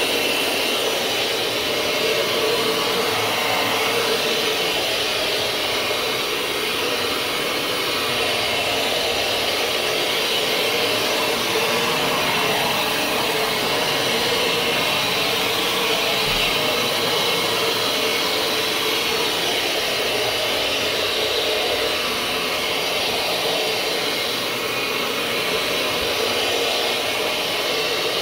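Counter-rotating brush (CRB) carpet scrubbing machine running steadily, its brushes working pre-spray into urine-soaked carpet.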